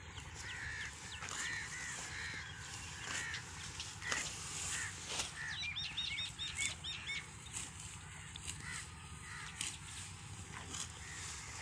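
Birds calling in the open: a string of short calls over the first few seconds, then a quick run of higher chirps a little past halfway. Scattered sharp snaps and rustles come from plant stems being handled and pulled.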